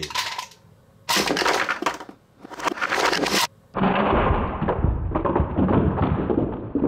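Two loud noisy bursts, then from about four seconds a long, lower, dense clatter of hollow plastic Nerf target cans being knocked down and tumbling, stretched out as in slowed-down playback.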